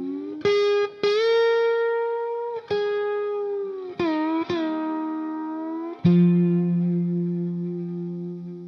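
Background music: an electric guitar with effects plays slow, sustained notes that slide in pitch. The last note, about six seconds in, rings on and fades.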